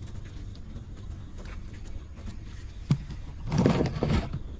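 Mother dog and nursing puppies: soft suckling and snuffling, a sharp click about three seconds in, then a louder, rough snuffling noise lasting well under a second.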